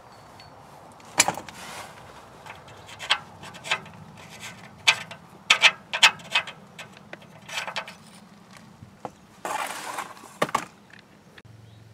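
Scattered light metal clicks and clinks, about a dozen, as a loosened oxygen sensor is spun by hand out of its threaded bung in the exhaust pipe. A short scraping rustle comes near the end as the sensor and its wire are pulled free.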